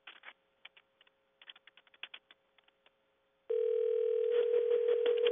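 Telephone ringback tone of an outgoing call, heard through a recorded phone line. One steady ring, about two seconds long, starts about three and a half seconds in. Before it there are only faint scattered clicks on the line.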